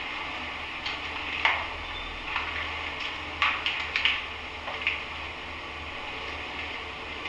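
Radio static from a handheld ghost-hunting spirit box: a steady hiss broken by short crackles and clicks, bunched between about one and five seconds in.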